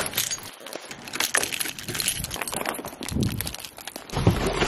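A bag of packed parcels rustling and knocking as it is picked up and carried, with footsteps on paving. A low rumble comes in near the end.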